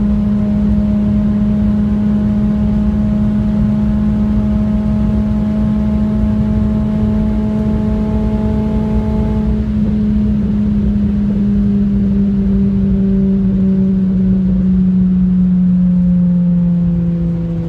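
Renault Clio RS engine running steadily at high motorway speed, with road and wind rumble underneath; its pitch climbs slowly, then drops near the end.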